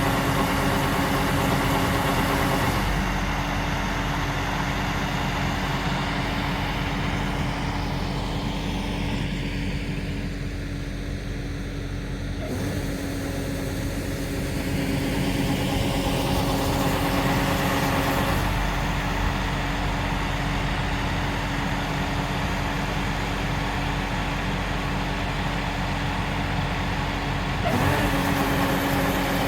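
LOVOL RG130 EVO rice combine harvester running steadily, a constant engine and machinery drone with a steady hum. The sound shifts abruptly several times and dips in level for a few seconds midway.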